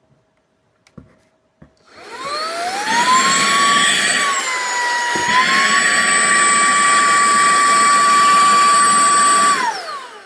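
SERVOMASTER cordless handheld vacuum cleaner: a couple of faint clicks, then the motor starts about two seconds in with a rising whine. It runs steadily with a brief dip in pitch around the middle and is switched off near the end, the whine falling away.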